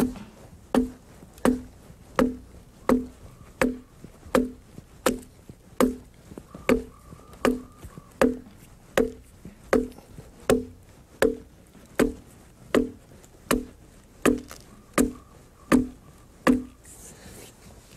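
Foot adze chopping into the flat face of a hewn log, dressing the surface: steady strokes, about three every two seconds, each a sharp chop with a brief hollow knock, stopping about a second before the end.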